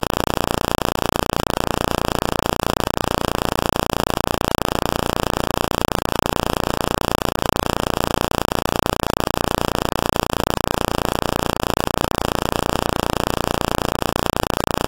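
Steady, unchanging hiss of electronic static, with no other sound in it.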